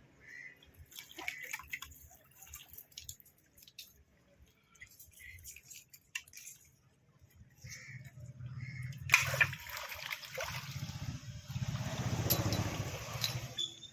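Seawater splashing and sloshing, with faint scattered drips and clicks at first, then louder and more continuous from about two-thirds of the way through.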